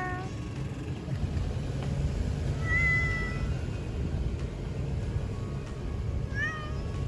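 A domestic cat meowing three times: the tail of one meow at the very start, a steady, even-pitched meow about three seconds in, and a short one that rises then levels off near the end. A steady low rumble runs underneath.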